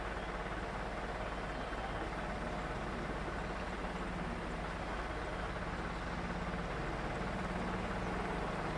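Aircraft engines running steadily under a broad even rush of noise, with a low hum whose pitch rises slightly near the end.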